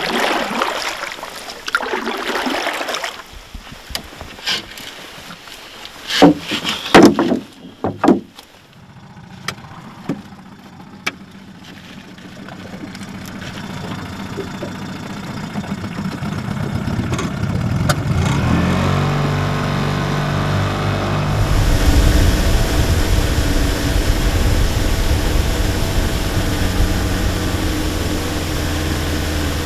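A few sharp knocks about six to seven seconds in. Then a small boat outboard motor grows louder, speeds up with a rising pitch around eighteen seconds in, and runs steadily under way.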